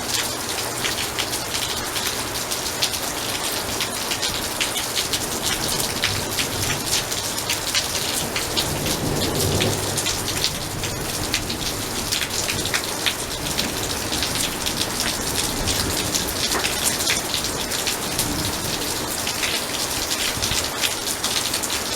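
Heavy rain pouring down, a dense steady splatter of drops on hard surfaces. A low rumble of thunder swells and fades about nine seconds in.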